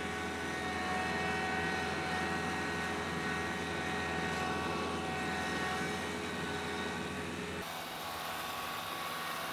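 Kubota LX3310 compact tractor's three-cylinder diesel engine running steadily under load as it pulls a disc harrow through the soil. The engine note shifts abruptly near the end.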